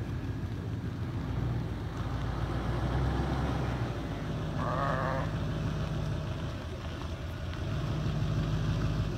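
Sheep in a crossing flock, one giving a clear bleat about halfway through, over a steady low rumble.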